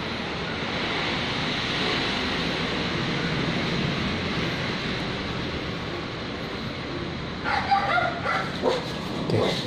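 A dog barking several times in quick, irregular calls during the last two seconds, over a steady rushing noise.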